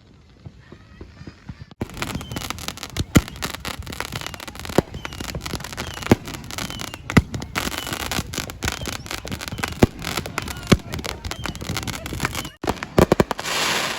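Fireworks going off: dense crackling with many sharp bangs, starting about two seconds in after a short quiet stretch, and a brief hiss near the end.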